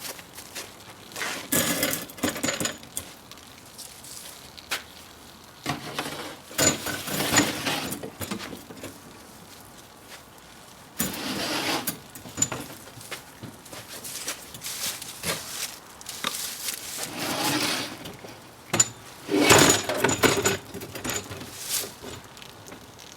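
Hands-on shop work on metal parts: irregular spells of scraping and rubbing lasting a second or two each, broken by sharp metallic clicks and knocks.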